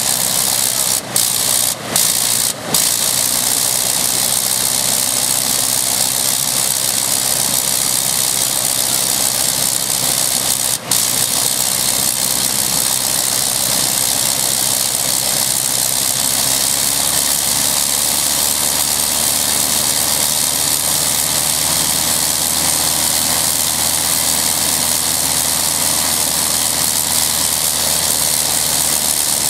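80 hp Le Rhône World War I rotary engine of a Sopwith Pup running on the ground, its sound dipping for an instant three times in the first few seconds and once about eleven seconds in. The engine has no true throttle: its speed is varied with the fuel and air mixture controls, which sounds like throttling up and down.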